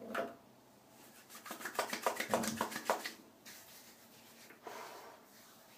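Hands rubbing aftershave into a freshly shaved scalp. A quick run of short rubbing strokes comes about a second in, then fainter rubbing.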